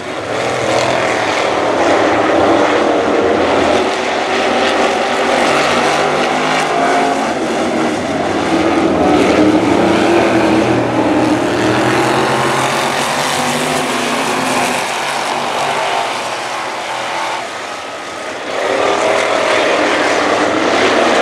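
A pack of V8 street stock race cars running laps on a dirt oval. The engines drone continuously, rising and falling in pitch as the cars pass. The sound dips briefly near the end, then swells back up.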